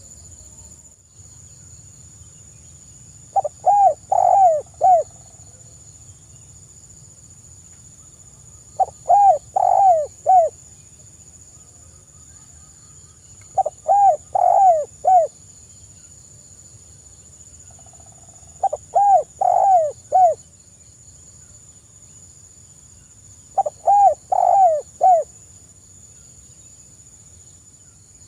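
Spotted dove cooing softly: five short coo phrases about five seconds apart, each of three or four quick notes.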